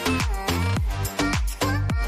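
Background music with a steady dance beat and a melody.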